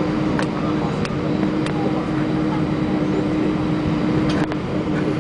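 Cabin noise of an Airbus A320-232 taxiing after landing, heard beside the wing: its IAE V2500 engines at idle give a steady hum with a steady low tone, and faint ticks now and then.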